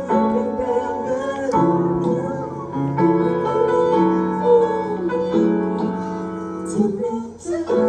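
Piano playing slow, sustained chords that change every second or so, amplified through a large outdoor sound system and heard from within the crowd.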